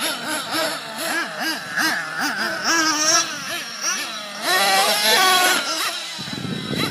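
A radio-controlled monster truck's motor revving up and down over and over, its pitch rising and falling about three times a second, loudest and highest about four and a half seconds in. Near the end the engine note stops and a low rushing noise is left.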